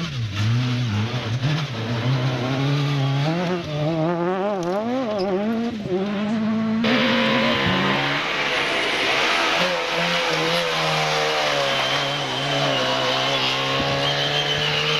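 Competition car engine revving hard, its pitch swinging up and down through throttle lifts and gear changes. About seven seconds in the sound changes abruptly to another car's engine running at a steadier high pitch.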